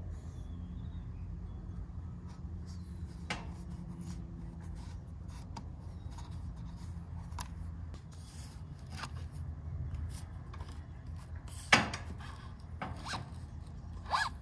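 Hands working on a DVO Topaz T3 mountain-bike rear air shock: faint rubbing and scraping of its parts with scattered light clicks, and one sharper click about twelve seconds in. A low steady hum runs underneath.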